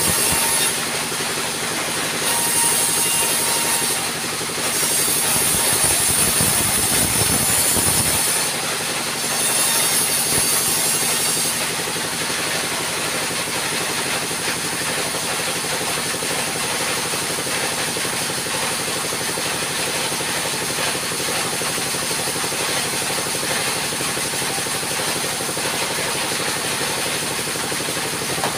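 Diesel-driven vertical band saw cutting boards, with the blade sawing through wood in about four passes over roughly the first twelve seconds. After that the saw's engine keeps running steadily with no cutting.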